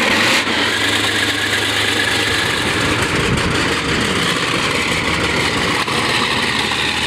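A captured Russian main battle tank's engine running steadily at idle, a deep, even rumble.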